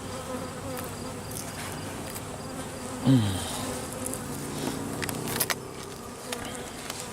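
Honey bees buzzing around an open hive. About three seconds in, one buzz swells loud and drops in pitch, and a few sharp clicks come a couple of seconds later.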